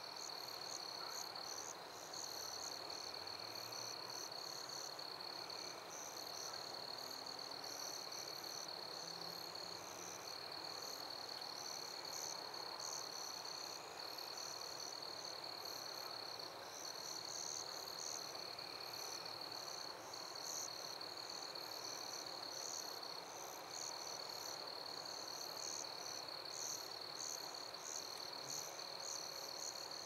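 Night-time chorus of insects: a steady high trill that breaks off briefly now and then, with quick pulsing chirps above it, over a soft outdoor hush.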